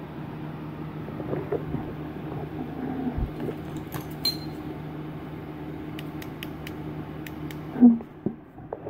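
A steady low mechanical hum with scattered light clicks and taps. The hum cuts off about eight seconds in, just after a short louder sound.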